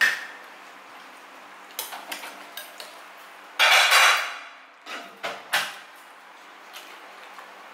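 Eating utensils clinking and scraping against dishes during a meal, in sharp separate clicks. A louder noisy scrape of under a second comes about halfway through.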